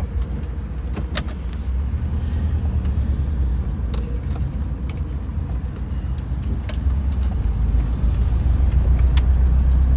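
Classic 1966 Ford car running on the road, heard from inside the cabin as a steady low engine and road drone. A few light clicks and rattles come through, and the drone gets louder near the end.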